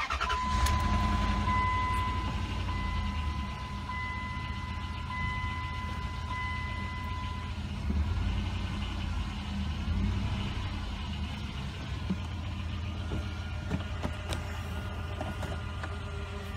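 A 2001 Dodge Dakota's 4.7-litre V8 catching and running at idle, on its first start after a transmission shift-kit install and fluid refill. A dashboard warning chime beeps steadily through the first seven seconds or so. The engine gets briefly louder about eight and ten seconds in.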